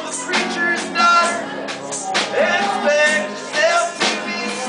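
Live acoustic band playing a song: strummed acoustic guitar, bowed violin and a drum kit, with a man singing over them.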